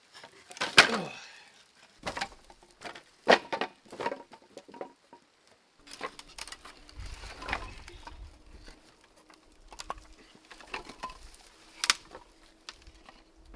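Scattered sharp knocks and cracks of wood being handled, several seconds apart, with the loudest about a second in. A faint steady hum comes in about halfway through.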